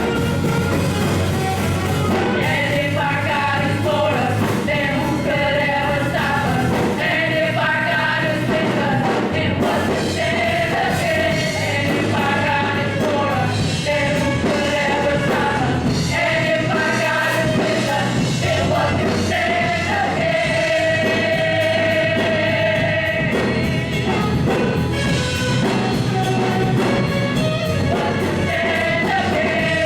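Gospel praise music: a choir or praise team singing over a live band with bass and drums, steady throughout.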